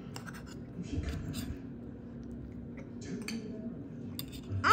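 Metal fork clicking and scraping on a ceramic plate while pancakes are cut and eaten, over a low steady hum. At the very end comes a short, louder voice-like sound that falls sharply in pitch.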